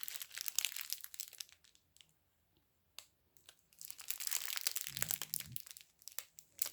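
Plastic bags of diamond-painting drills crinkling as they are handled, in two spells with a short quiet gap and a single click between them.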